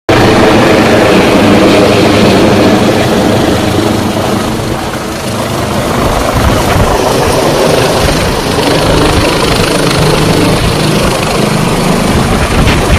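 Air rescue helicopter hovering low overhead and descending to land, its rotor and turbine noise loud and steady, easing slightly about five seconds in.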